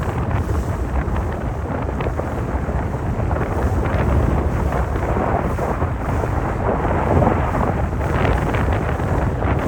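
Wind buffeting the microphone on a moving boat: a steady, loud, low rumbling rush of wind and water noise.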